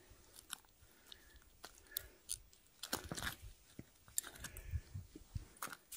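Faint irregular clicks and short crunching scrapes of a metal hook extractor working a deeply swallowed hook out of a pike's toothy mouth.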